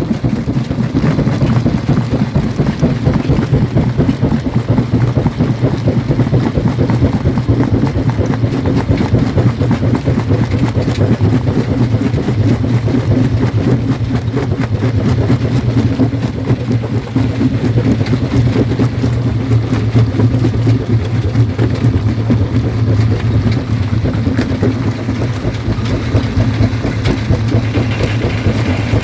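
Jaw crusher running with a steady low drone, over many small knocks and cracks from the stone being crushed.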